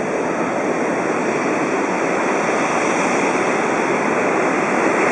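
Jet engines of a Singapore Airlines Airbus A380, its four Rolls-Royce Trent 900 turbofans, running as the airliner moves on the ground: a steady roar that grows slightly louder.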